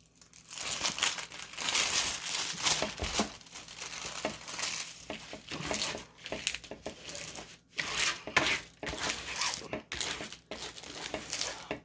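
Packaging crinkling and tearing as it is handled and pulled open, in uneven bursts with a few short pauses.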